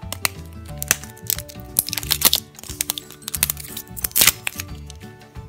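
Background music with steady notes and a bass line, over the crinkling and sharp clicks of clear shrink-wrap being picked and peeled off a plastic acorn-shaped toy capsule by hand.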